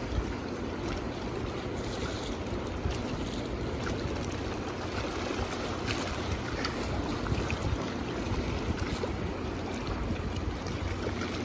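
Steady rushing of a mountain river, with wind rumbling on the microphone.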